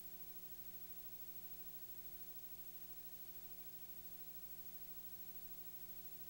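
Faint, steady hiss with a low electrical hum and a few higher steady tones, unchanging throughout: the noise floor of a recording with no other sound on it.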